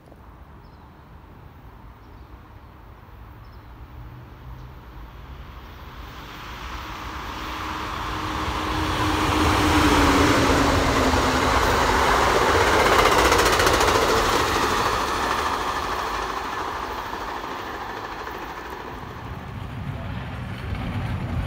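Amtrak Pacific Surfliner passenger train passing at speed. The rumble and wheel-on-rail noise build over several seconds, peak around the middle, then fade as the train goes away.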